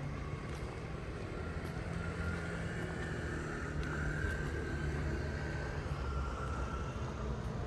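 Street traffic: motor vehicles running nearby, a steady low engine hum with a higher whine that rises in the middle few seconds and fades near the end.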